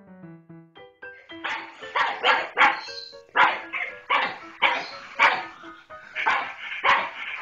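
A dog barking repeatedly, about two sharp barks a second, over soft piano background music. The music plays alone for about the first second before the barking starts.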